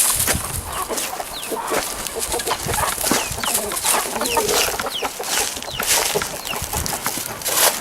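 Chickens clucking, with short high falling chirps and a scatter of sharp knocks and rustles.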